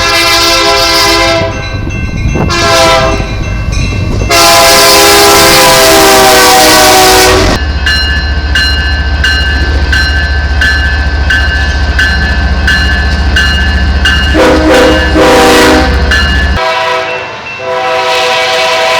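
Train horn sounding several long, loud blasts, each a chord of several notes, with a steady low rumble and rhythmic clatter of a passing train between the blasts.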